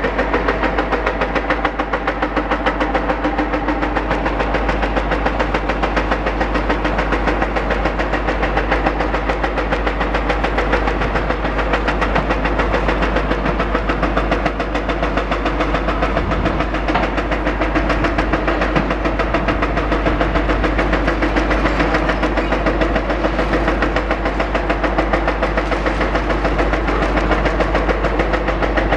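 Demolition excavator's hydraulic breaker hammering at concrete in a rapid, steady rhythm, echoing around the whole area so that the echo seems louder than the actual sound.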